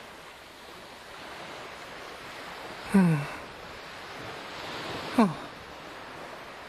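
Steady wash of ocean waves, with a voice sighing twice, each a short sigh falling in pitch, about three seconds in and again about two seconds later.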